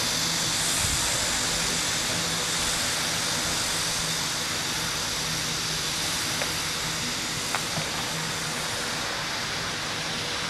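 Steady airy hiss with a low hum from a running fan, with a few faint ticks.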